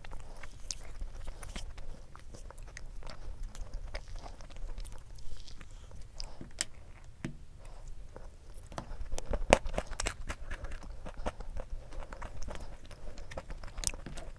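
Close-miked chewing and crunching of crispy chocolate-coated balls (Baskin-Robbins 'Mom is an Alien' chocolate balls) eaten with ice cream: many short crunches, loudest about nine to ten seconds in.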